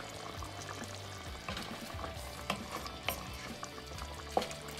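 Wooden spoon stirring a thick, simmering curry in a metal pot, with a bubbling hiss under it. The spoon knocks against the pot three times in the second half, the last knock the loudest.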